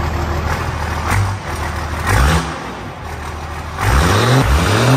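12-valve Cummins inline-six diesel idling through a vertical exhaust stack, then revved twice: a short surge about two seconds in and a longer one near the end, each pitch rising and falling with a rush of exhaust.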